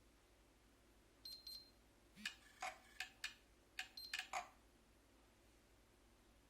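Keypad buttons on a Sokkia surveying instrument being pressed. Two presses about a second in each give a short high beep, then a quick run of about eight clicking presses follows, a few of them also beeping.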